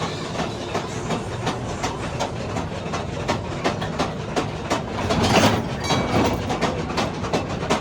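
Mine ride train cars rattling along the track, clacking steadily at a few clicks a second over a low running rumble, which swells louder briefly about five seconds in.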